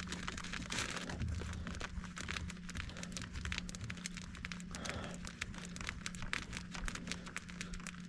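Rustling, scraping and small clicks of hands and a jacket sleeve working among a wiring harness and hoses behind a diesel engine, over a steady low hum.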